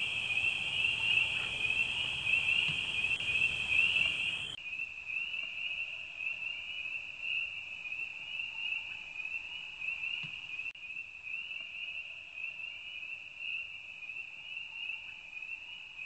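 Night insect chorus: crickets trilling steadily in a high, pulsing band. The low background hiss under it drops away suddenly about four and a half seconds in.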